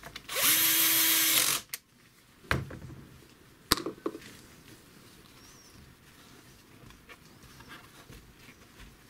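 Power drill-driver with a socket spinning down a nut on a Vespa PX engine case for just over a second, then stopping. A knock and a sharp click follow as the tools are handled.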